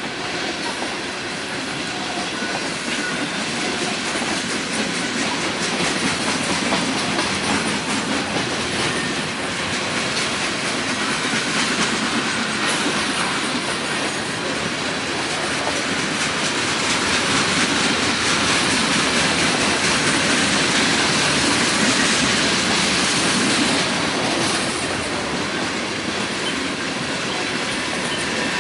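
Railroad cars rolling past close by, their wheels giving a steady clickety-clack over the rail joints amid continuous rolling rumble.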